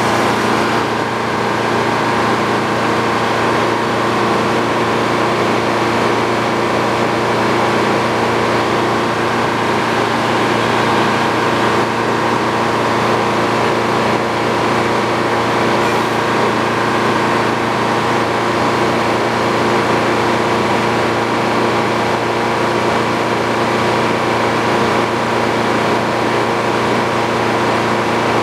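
Sawmill's power engine running steadily at one speed with no cut being made. A hissing cut dies away in the first second.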